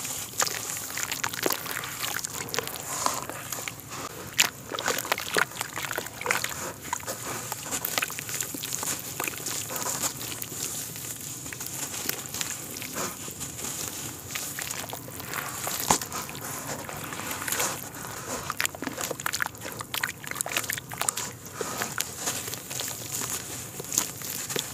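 Dry clay chunks crumbling and squeezing between wet hands, with gritty crumbs dropping and splashing into a basin of muddy water: a dense run of crackles, soft squelches and small splashes, a few sharper splats standing out, about four and sixteen seconds in. A steady high-pitched tone sits underneath.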